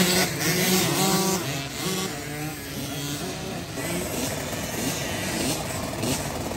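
Several small youth dirt bike engines running and revving, their pitches rising and falling over one another. The engines are loudest at first and settle to a lower, steadier drone about halfway through.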